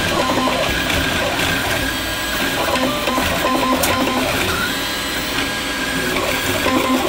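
Atomic U300 3D printer running a print: its stepper motors whine in short steady tones that change pitch every second or so as the print head switches moves, over a constant mechanical whir.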